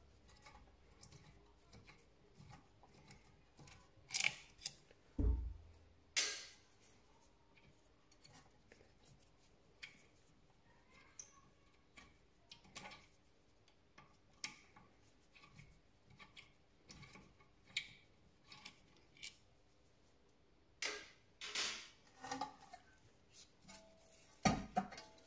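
Scattered metallic clicks and clinks of an Allen key being turned and repositioned in the spindle socket of an electric-parking-brake rear caliper, winding the piston back. Louder clacks and knocks about four to six seconds in and again near the end, as the caliper is handled.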